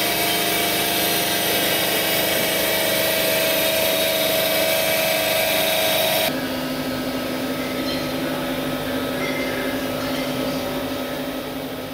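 Electric motor and hydraulic pump of a CNC punch press running steadily with a whining hiss. About six seconds in the loud noise cuts off suddenly, leaving a quieter steady machine hum with a low tone.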